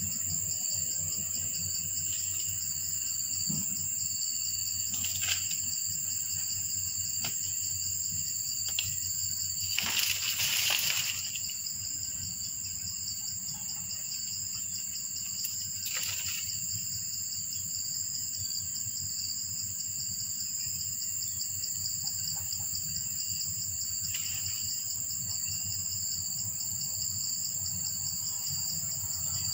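A steady, high-pitched chorus of insects, with a brief burst of noise about ten seconds in and a few faint clicks.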